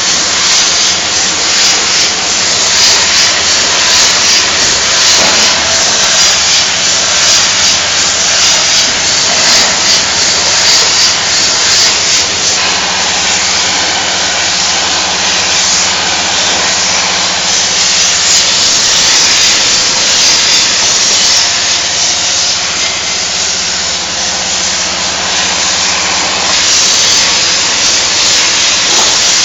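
Automatic aerosol-can production line running: a loud, steady hiss over a faint low machine hum.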